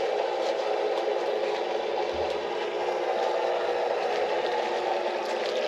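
Above-ground pool filter pump running steadily, a continuous whirring hum with no change in pitch or level, after the air has been bled from the lines.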